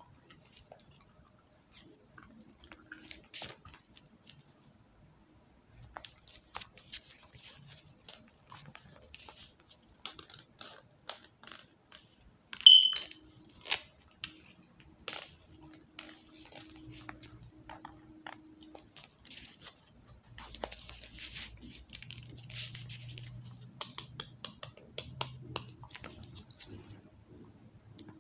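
ASMR tapping on assorted objects: irregular light taps and clicks, with one much louder, ringing tap near the middle.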